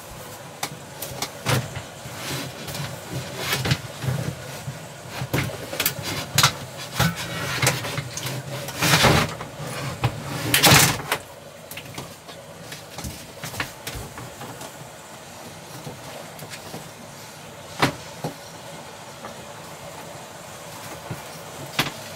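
Handling noises: scattered knocks and clicks, with two longer scraping or sliding sounds about nine and eleven seconds in, then only the odd click.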